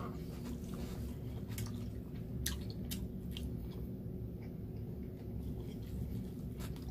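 A person chewing a mouthful of food, soft mouth sounds with a few faint clicks over a low room hum.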